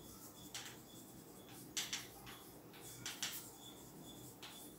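Chalk scratching on a blackboard as words are written, in about six short, faint strokes.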